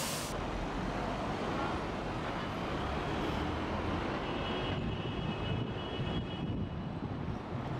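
Steady rumble of city traffic and road noise heard from a moving bus. There is a short burst of hiss at the very start and a faint high-pitched whine about halfway through.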